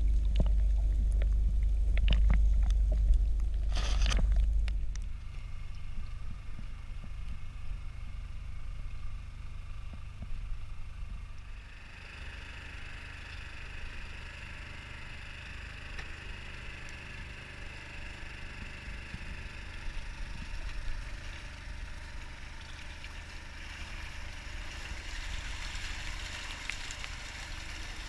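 Underwater camera audio first: a deep rumble with scattered clicks, and a sharp burst about four seconds in. After a quieter stretch, the boat's steady engine noise and water take over, with more splashing near the end as fish thrash in the net being hauled aboard.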